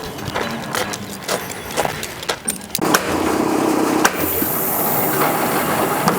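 Scattered knocks and clicks of framing work, then from about three seconds in a steady engine running with a constant hum.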